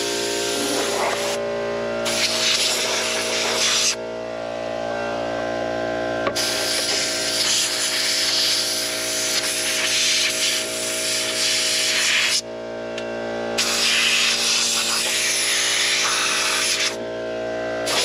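Compressed-air blow gun blasting air in loud hissing bursts, cut off four times as the trigger is let go and squeezed again, with a steady hum underneath.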